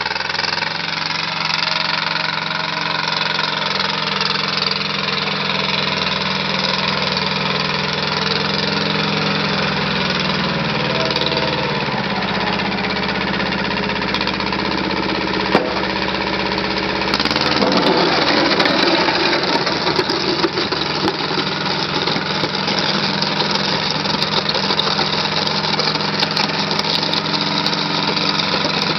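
Kubota L185DT compact tractor's 18-horsepower diesel engine running steadily. Its engine speed drops about a third of the way through, and a little past halfway the sound turns rougher and slightly louder.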